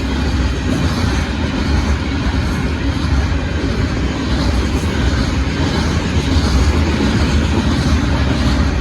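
Union Pacific gravel train rolling past: a loud, steady rumble of the cars on the rails.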